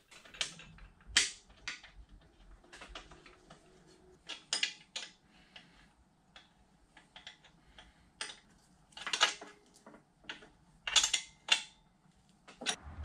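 Steel wrench clinking and clicking on the motor's mounting bolts as the motor is bolted down to the milling head's belt housing. The clicks come singly and in short clusters, with quiet gaps between them.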